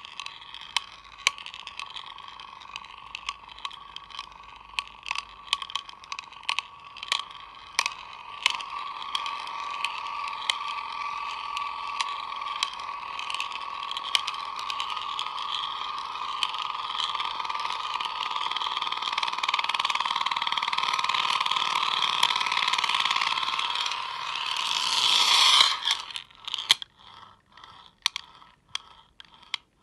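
Foreverspin metal spinning top spinning on a mirror: a steady high ringing hum, broken by many sharp clicks as the green marble knocks against it. The hum grows louder, swells briefly, then stops suddenly a few seconds before the end as the top tips over, leaving a few scattered clicks.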